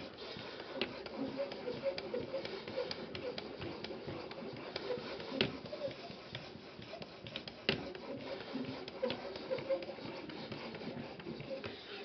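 Edge Pro Apex sharpening stone stroked back and forth along the edge of a ZDP-189 steel Spyderco Endura 4 blade: steady, uneven scraping with sharp clicks as the stone is lifted and set down again. The edge is being polished to a shine.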